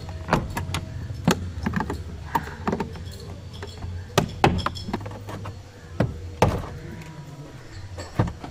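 Plastic trim clips of a Honda City front door panel popping and clicking as the panel is pried off with a screwdriver and pulled by hand: a series of sharp snaps at uneven intervals, over a steady low hum.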